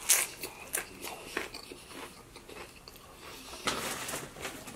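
Close-miked biting and chewing of a crisp tortilla chip: a few sharp crunches in the first second and a half, thinning into softer chewing. Near the end comes a rustle of paper napkins.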